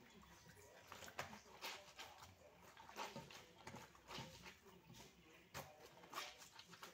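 Faint, irregular squishing and rubbing of a wet dish towel being scrubbed and wrung by hand in a sink.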